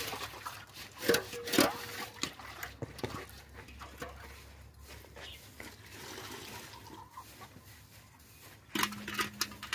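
Metal cooking pots and dishes knocking and scraping against one another as they are handled and washed by hand, with two louder clanks a little after a second in, the first ringing briefly. Near the end a short low steady tone sounds among a few more knocks.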